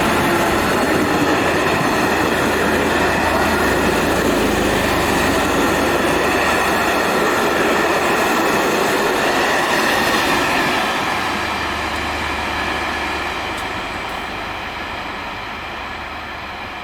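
Locomotive-hauled passenger train passing through at speed, its carriages rolling past with a loud, steady rush of wheel and rail noise. About eleven seconds in, the sound begins to fade as the train moves away.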